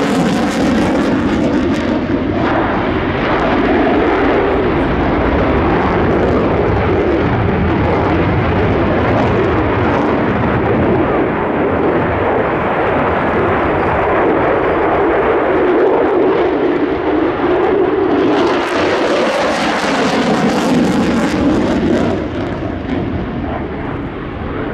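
F-16 fighter jet's engine during a display flight, a loud, continuous jet noise whose pitch rises and falls as the aircraft manoeuvres. The noise turns harsher and hissier about three-quarters of the way through, then eases slightly near the end.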